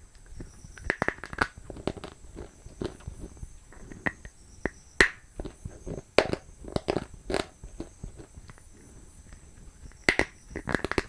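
Close-up biting and chewing of a hard, crunchy white food: irregular crisp crunches, with the loudest bites about five seconds in and again near the end.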